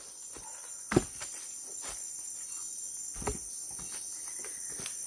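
Steady high-pitched insect chorus, with a few sharp knocks of sticks being handled and laid on a campfire, the loudest about a second in.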